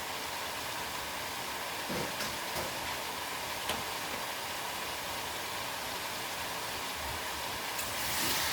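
Cabbage and onions sizzling steadily in hot oil in a frying pan, with a few light clicks, growing louder near the end.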